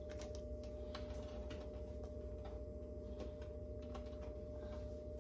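Light, irregular clicks and taps of chopped vegetables (celery, onion, green and red pepper) being gathered by hand off a cutting board and dropped into a cooking pot, over a steady hum.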